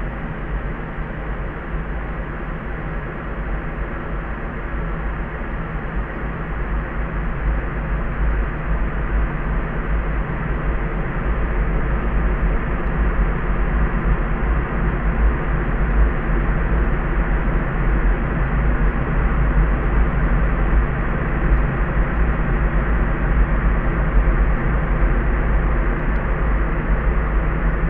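Steady layered sleep noise: a soft, muffled hiss over a heavy deep rumble, with nothing bright on top, growing slightly louder over the first half.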